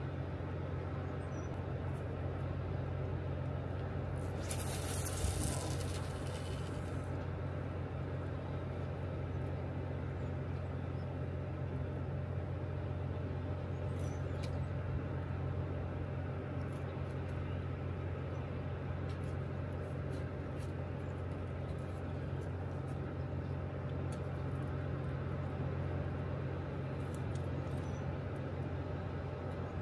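Steady low rumble of river water churning below a dam, with a brief hiss about five seconds in.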